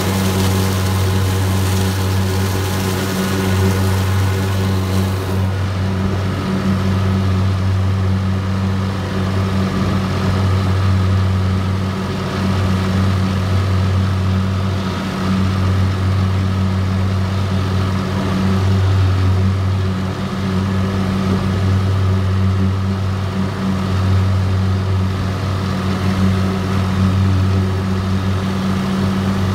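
Massey Ferguson 2605H tractor's engine running steadily as it pulls a Woods finish mower through grass, a constant low hum.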